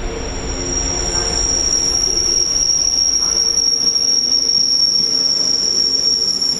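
Regional express train squealing as it brakes along the platform: a steady, high-pitched squeal over low rolling rumble that stops near the end.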